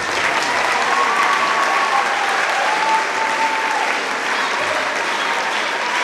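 A hall audience and the performers on stage applauding steadily, with voices calling out over the clapping.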